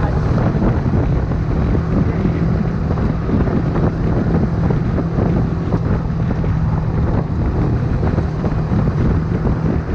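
Honda CBX 250 Twister's single-cylinder four-stroke engine running at steady revs, with wind noise on the microphone.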